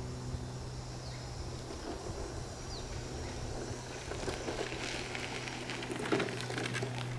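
A few short bird chirps, then crunching on a dirt and gravel path from about four seconds in as a Permobil F3 power wheelchair's tyres roll over it. A steady low hum fades out about two seconds in and comes back near the end.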